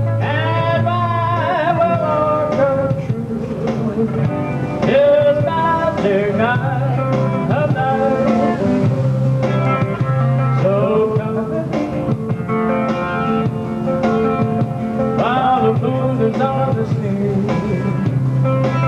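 Live amplified music: a man singing into a microphone over guitar accompaniment with a steady bass line.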